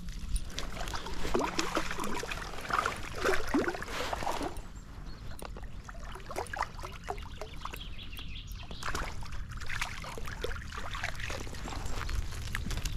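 Water splashing as a hooked rainbow trout thrashes at the surface and is drawn into a landing net, in irregular bursts, heaviest in the first few seconds and again near the end.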